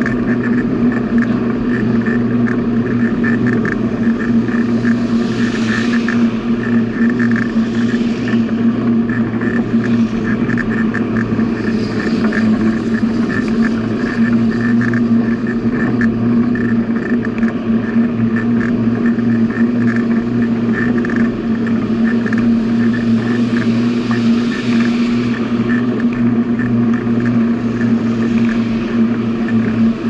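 Steady mechanical hum at an unchanging pitch over a rushing noise, with a few brief swells of higher hiss.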